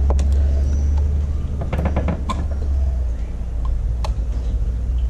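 A steady low rumble that weakens after about halfway, with a few small clicks and scrapes of hand tools cutting and prying a rubber foot pocket off a carbon fibre fin blade.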